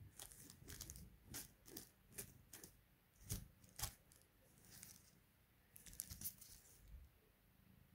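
Near silence broken by faint, irregular small clicks and light rattles, about a dozen over several seconds.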